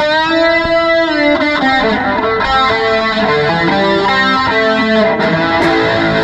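Electric guitar played with distortion: a long held note bent in pitch, then a quick single-note lead melody.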